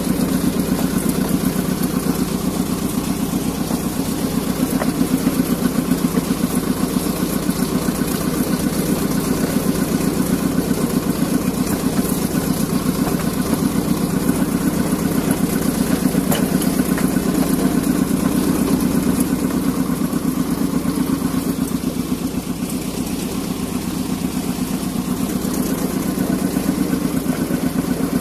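Small narrow-gauge rail locomotive's engine running steadily with a fast, even firing beat, heard close up from the driver's seat as the locomotive travels along the track. It eases off slightly for a few seconds about three quarters of the way through.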